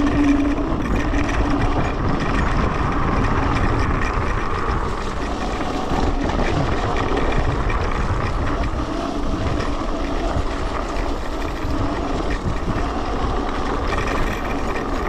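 Electric scooter being ridden over a muddy off-road track: a steady rush of wind on the microphone mixed with tyre and motor noise.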